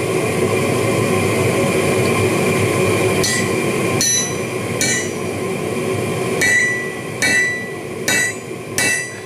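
Hammer striking a steel hole punch to drift a hole through a bicycle kickstand bar on an anvil: seven ringing metal-on-metal blows beginning about three seconds in, three in quick succession, a short pause, then four more. A steady rushing noise runs underneath throughout.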